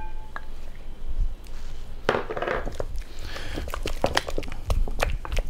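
Sour cream being scooped from its tub into a glass bowl of cream cheese: a short ringing clink at the start, then soft scraping and plopping. Toward the end a utensil stirring the soft mixture taps against the glass bowl in quick, irregular clicks.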